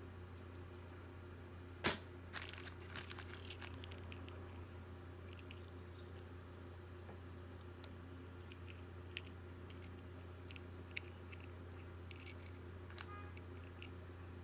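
Jewelry being handled and set down: scattered light clicks and small rattles, the sharpest a single click about two seconds in followed by a flurry of small ones, over a steady low hum.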